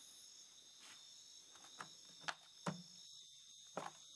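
Faint steady chirping of crickets, with a few light, sharp taps and thuds from a mouse scrabbling and jumping inside a plastic bin.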